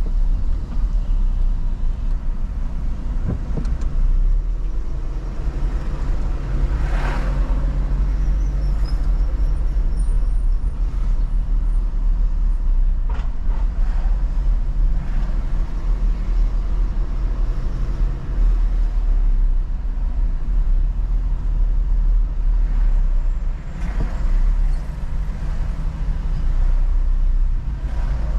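Car driving on a city road: a steady low rumble of engine and road noise, with a brief louder swell about seven seconds in as traffic passes.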